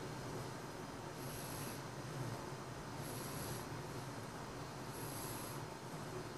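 Seven-month-old baby snoring in sleep: three snoring breaths about two seconds apart, over a steady low hum.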